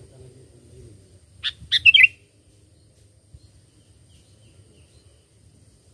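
Sooty-headed bulbul (kutilang) giving one short, quick phrase of several bright notes about one and a half seconds in, over a faint low hum.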